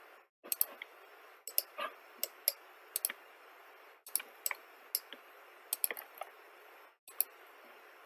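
Computer mouse clicking: about a dozen short, sharp clicks at irregular intervals over a faint steady hiss.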